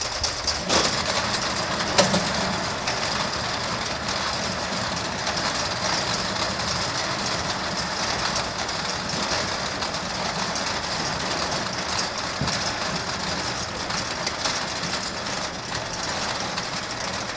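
A large motorized steel roll-up door rolling open. It gives a steady mechanical noise that starts suddenly, with a sharp clank about two seconds in.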